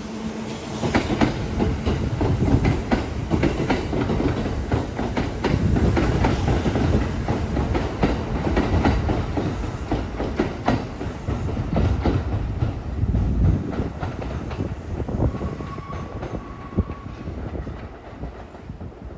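Kintetsu electric train passing over the level crossing, wheels clacking over the rail joints with a steady rumble that eases off in the last few seconds. A brief high-pitched tone sounds near the end.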